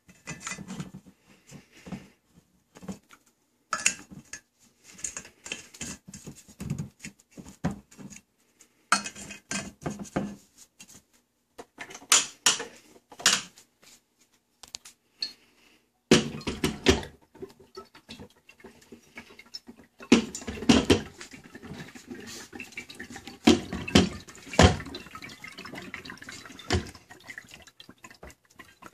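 Irregular clinks, clicks and knocks of glass liquor bottles and plastic pour caps being handled and seated upside down in a tap machine, with several heavier thumps in the second half.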